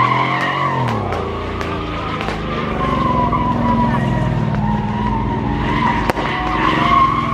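A car's engine revving hard while its tyres squeal and spin on the pavement; the revs drop about a second in, then climb and hold. A sharp crack sounds about six seconds in.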